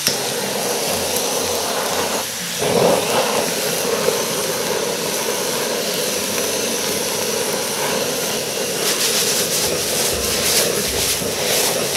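Handheld gas torch flame blowing with a steady rushing hiss over frying kimchi and vegetables in a wok, searing them for a smoky wok hei flavour. A click sounds at the start, and from about three quarters of the way through the food sizzles and is stirred in the pan.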